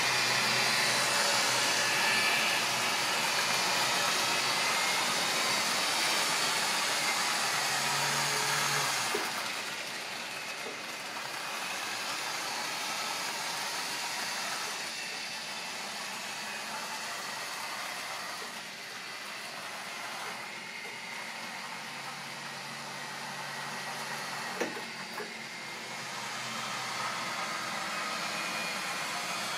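Model railway trains running on the layout: the electric motors whirr steadily, loud for about the first nine seconds and then quieter, with a single sharp click about 25 seconds in.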